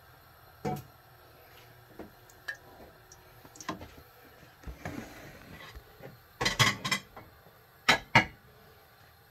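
Cookware clatter: a wooden spatula and pans knocking and clinking on a gas stove, a few scattered knocks, a louder run of clatter about six and a half seconds in and two sharp clinks near eight seconds.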